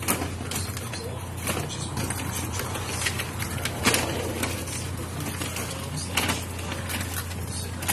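Metal tongs clicking and crabs rustling as they are dropped into a paper bag: a handful of short sharp clicks and scrapes, the loudest about four seconds in, over a steady low hum.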